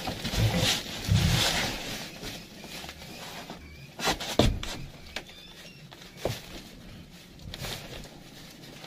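Handling noises: rustling and scraping, loudest in the first two seconds, with a couple of sharp knocks about four seconds in and another a couple of seconds later.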